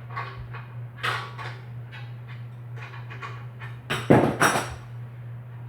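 Scattered clicks and knocks of tools and metal bicycle parts being handled during disassembly, with a louder clatter of several sharp knocks about four seconds in, over a steady low hum.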